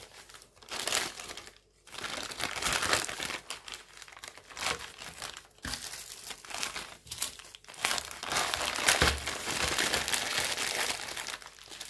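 Crinkly craft-kit packaging rustling and crinkling as it is handled, coming and going with a few short pauses.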